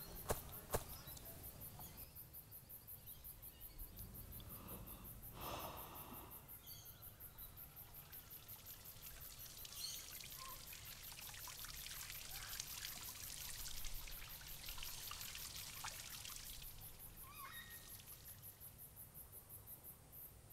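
Faint water trickling and spattering, as water dripping off a rock ledge, strongest in the middle. A few short bird calls come near the end.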